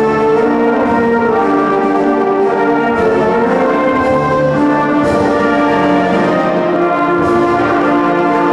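Orchestral music led by brass, sustained notes in a slow, stately line: a national anthem being played.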